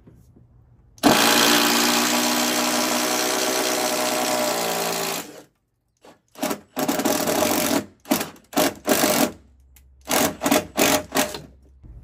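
Cordless drill boring a hole through a wooden joist. There is one continuous run of about four seconds, with the motor's pitch sagging near the end under load, then a string of short trigger bursts.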